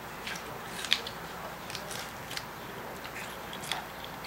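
A Miniature Pinscher biting and chewing watermelon rind: irregular crisp crunches, the loudest about a second in.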